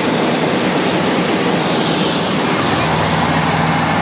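Cessna 150's four-cylinder Continental O-200 engine and propeller droning steadily in flight, heard inside the cabin with loud airflow noise. The engine's drone becomes more distinct about two and a half seconds in.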